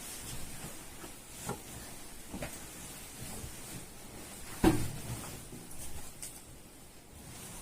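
A few soft knocks and shuffling sounds as a person is helped to change position, with one sharper thump, the loudest, a little under five seconds in.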